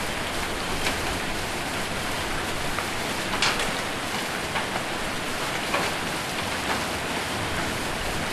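Heavy rain with hail drumming on a roof: a steady hiss of rain, broken by scattered sharper hailstone hits, the loudest about three and a half seconds in.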